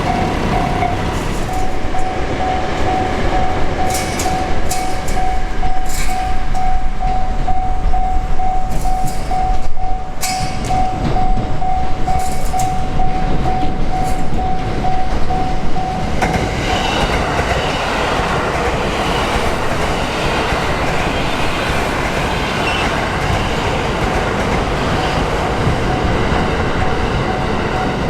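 Japanese level-crossing alarm bell ringing in a fast, even repeat while a freight train passes over the crossing, its wheels clicking over rail joints. Later on, the train's running noise grows and largely covers the bell.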